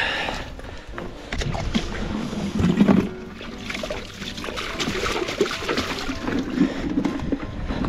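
Seawater sloshing and splashing as gloved hands rinse a metal tool and a plastic container in a shallow tidal pool, loudest about three seconds in.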